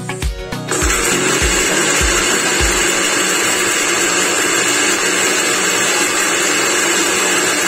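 Premier electric spice grinder running steadily, grinding whole spices into biryani masala powder; it starts under a second in and runs at a constant pitch. Background music with a beat plays under it for the first few seconds.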